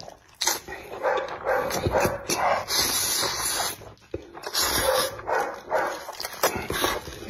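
A man slurping and chewing a mouthful of saucy instant noodles close to the microphone, with several long, wet slurps between bouts of chewing.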